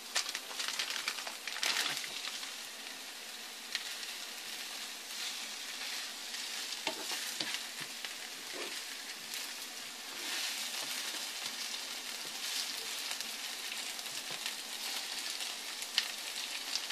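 Instant yakisoba noodle blocks and shredded green onion sizzling steadily in oil in a hot nonstick frying pan, with a few sharp clicks of a spatula against the pan.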